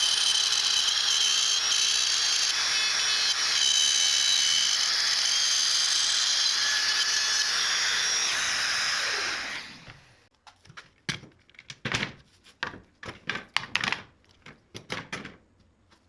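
A high-speed electric power tool running steadily on wood, then spinning down with a falling whine about nine and a half seconds in. A string of sharp knocks and clicks follows.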